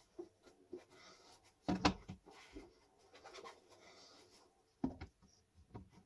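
Light knocks and clatters of household containers being handled and set down, loudest about two seconds in, with a few softer taps after.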